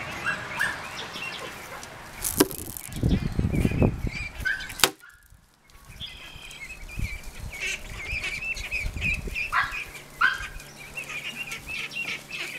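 Young ducks peeping, many short high calls one after another. A loud low rumble on the microphone runs from about two and a half to four seconds in, followed by a sharp click near five seconds and a brief drop to near silence.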